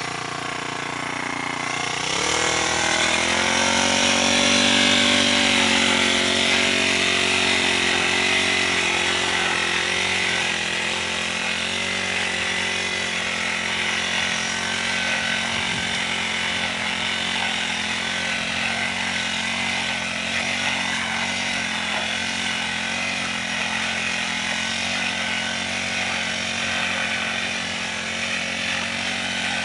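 Honda GX35 four-stroke brush cutter engine revving up from idle about two seconds in, then running steadily at high speed as the cutter is worked through weeds.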